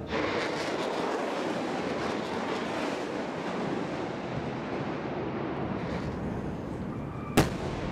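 A continuous rushing noise that eases slightly, then one sudden sharp explosion near the end.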